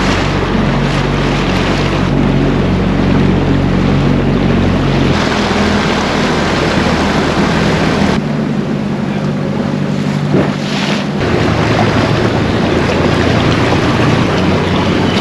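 Small outboard motor of a dinghy running steadily under way, with wind noise on the microphone and water rushing past the hull. The engine hum shifts abruptly a few times.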